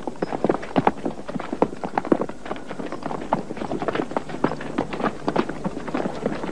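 Hooves of several horses clopping at a walk, the hoofbeats irregular and overlapping.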